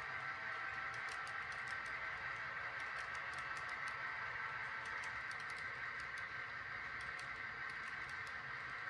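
Model freight cars rolling past on the layout's track: a steady whir of small metal wheels on the rails, with a scatter of light clicks as the wheels run over rail joints.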